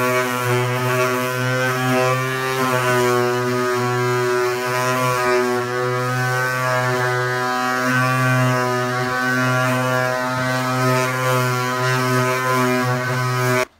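Ridgid electric palm sander running with 120-grit paper on dried drywall joint compound, a loud steady drone whose pitch wavers slightly as it works along the wall. It stops abruptly near the end.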